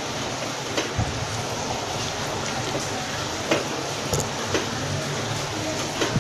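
Steel potato masher pressing boiled chickpeas into a thick masala in a kadhai, with a few light knocks of the masher against the pan over a steady sizzling hiss from the cooking gravy.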